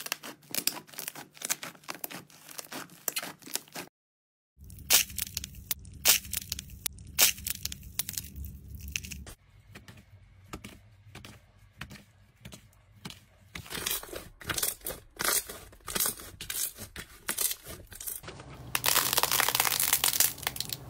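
Slime squeezed, poked and stretched by hand: quick sticky clicks and pops, with a brief silent gap about four seconds in. Near the end it becomes a dense crackling tear as a thick pink slime is pulled apart.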